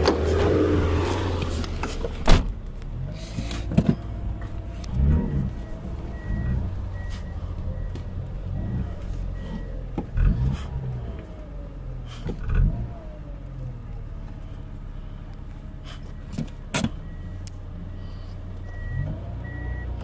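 Steady low rumble of idling vehicle engines, heard from inside a car cabin, with a few sharp knocks. A faint, evenly spaced beeping comes in twice, typical of a reversing alarm on the backhoe loader working outside.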